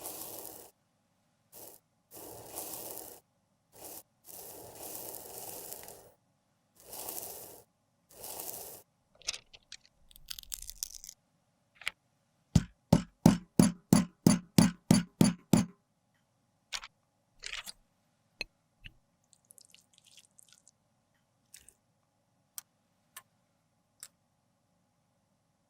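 Makeup being worked by hand: several scraping strokes, then a quick run of about a dozen sharp taps, roughly four a second, followed by a few scattered clicks.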